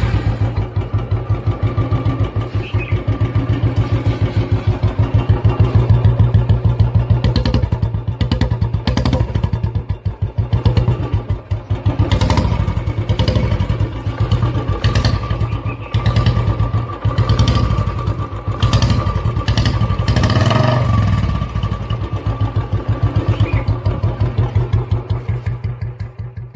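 Royal Enfield Bullet's single-cylinder four-stroke engine running with a fast, even exhaust beat, blipped on the throttle several times through the middle. The sound fades out at the very end.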